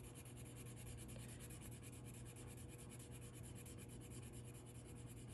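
Colored pencil shading on paper: a faint, rapid, even run of scratchy strokes as a swatch is filled in.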